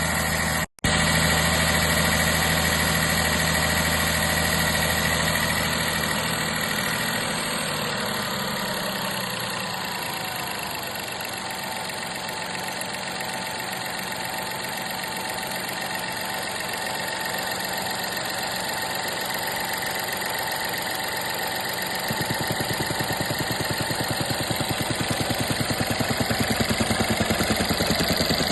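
Volkswagen 1.0 TSI (DLAA) three-cylinder turbo petrol engine idling, with an odd noise at idle that the owner finds weird. The idle sound shifts after several seconds. About three quarters of the way through, a fast regular pulsing sets in and the sound grows louder.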